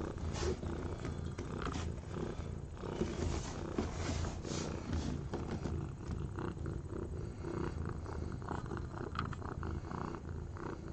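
Tortoiseshell mother cat purring steadily and close by while giving birth, with soft rustles over the purr.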